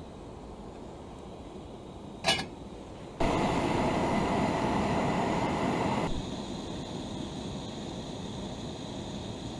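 Portable gas camping stove burning under a steel pot of water, heating it for coffee. A single sharp click comes a couple of seconds in, then the burner's steady hiss starts suddenly and loud, and drops to a quieter steady hiss after about three seconds.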